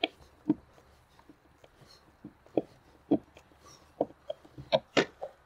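Irregular light clicks and knocks, a handful over a few seconds, as a solar flood light's plastic mounting bracket and a screwdriver are worked against the wooden siding while the light is being fastened up. The sharpest knocks come near the end.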